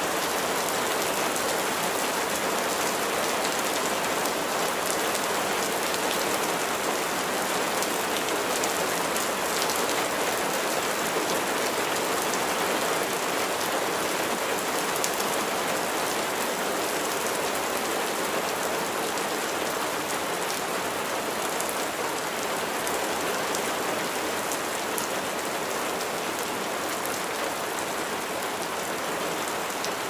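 Steady spring rain: an even hiss of many drops, with fine ticks of single drops throughout, easing off slightly toward the end.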